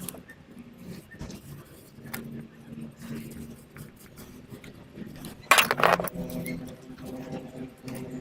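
Metal hand tools clinking and rattling against car engine parts as the engine mount and cover are refitted, with a louder, half-second metallic rattle about five and a half seconds in.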